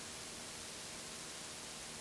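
Steady, even hiss with a faint, steady drone beneath it from a Lycoming IO-360 four-cylinder aircraft engine at cruise power. The engine is freshly overhauled and running through its break-in.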